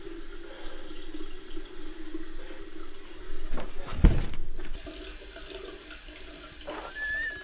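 Tap water running steadily from a mixer faucet into a washbasin. A single sharp thump about four seconds in, and a brief high tone near the end.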